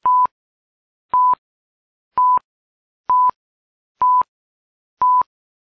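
Film-leader countdown beeps: six short, identical high beeps, about one a second, with silence between them.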